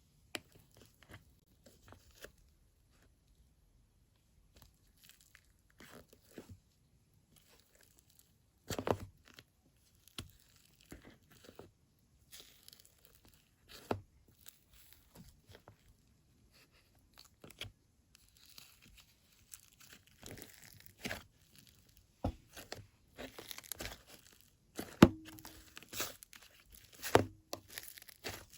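Clay slime mixed with faux clay sprinkles being handled: scattered sticky clicks, pops and short crackles, sparse at first and coming thicker near the end, with a few louder snaps.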